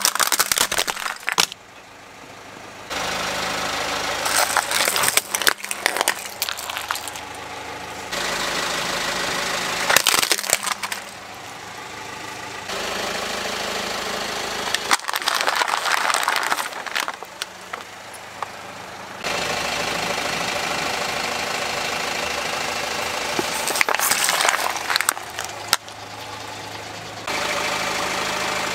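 A car engine idling in several short clips that begin and end abruptly, while the car's tyre rolls over objects and crushes them: several loud bursts of cracking, crunching and snapping, including plastic toy trucks breaking apart under the tyre.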